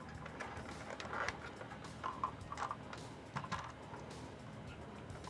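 Plastic parts of a large transforming robot toy clicking and rattling as they are handled and fitted together: a scatter of light clicks and small knocks, bunched a second in, around two seconds in and again past three seconds.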